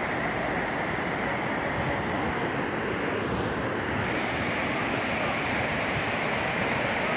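Swat River in flood, a wide torrent of muddy water rushing past a concrete embankment: a steady, unbroken rushing noise.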